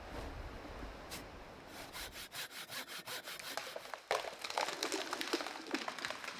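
Hand saw cutting wood in quick rhythmic strokes, growing louder and denser about four seconds in.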